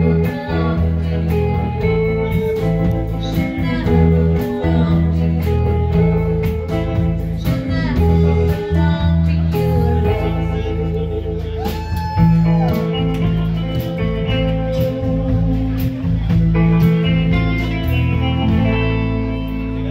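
Live rockabilly band playing: electric guitar over upright double bass and drums, amplified through a PA.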